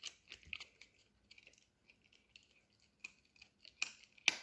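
Small dog chewing a dried rabbit ear: faint, irregular crunching and clicking, with two sharper cracks near the end.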